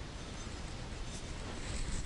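Quiet steady background noise, room tone, with no distinct sound event.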